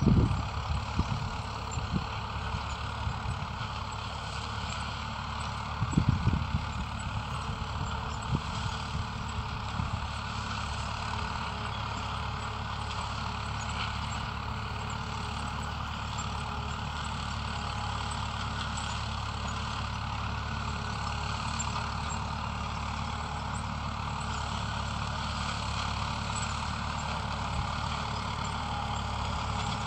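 Farm vehicle engine running steadily with a constant low hum. A few low bumps come near the start and about six seconds in.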